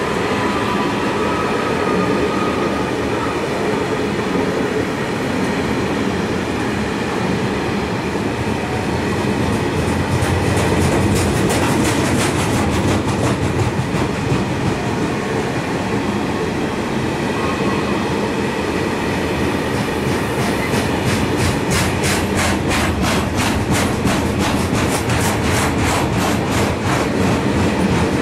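Freight train of Talbot hopper wagons rolling past, a steady rumble of wheels on rails with rapid regular clicking over rail joints in the second half.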